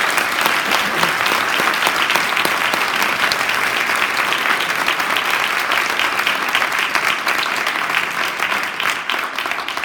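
A large audience in a hall applauding, a dense steady patter of many hands clapping that starts suddenly and fades just after the end.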